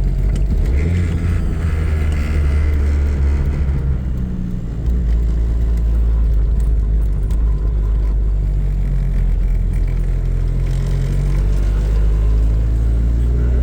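Four-cylinder engine of a 600 hp, E85-fuelled 1990 Talon running steadily under way. About four and a half seconds in, the drone dips briefly, then comes back slightly louder and steady.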